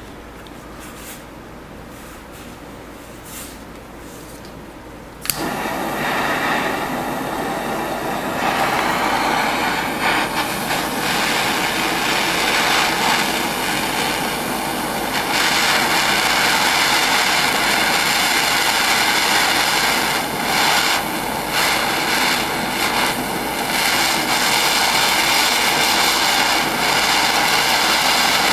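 Handheld butane jet torch burning with a loud, steady hiss as it heats the nail of a glass dab rig. It lights suddenly about five seconds in, after a quieter stretch, and cuts off at the very end.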